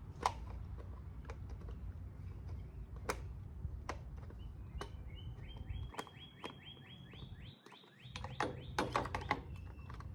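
A bird trilling, a fast run of short, repeated falling chirps about halfway through, over a low background rumble and scattered clicks and knocks.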